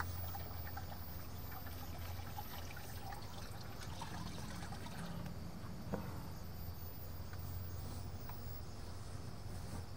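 Tiered garden fountain trickling faintly over a steady low hum, with one light click about six seconds in.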